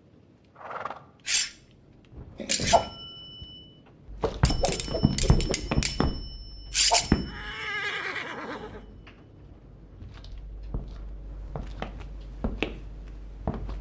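Foley sword-fight sounds: a swish, then blades clashing with metallic rings that hang on after the strikes. A fast flurry of clashes comes from about four to seven seconds, then a wavering pitched scrape, then softer scattered taps.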